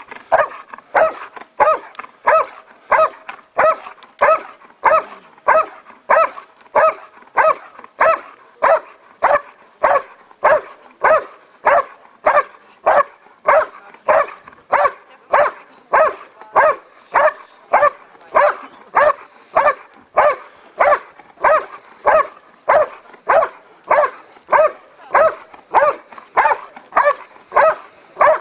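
Belgian Malinois barking continuously at the decoy in the hiding blind, the hold-and-bark of an IPO protection routine. The barks are evenly spaced, about three every two seconds, with no let-up.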